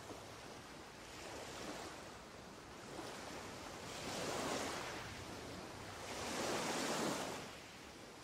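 Ocean waves washing in, the surf swelling and falling back three times.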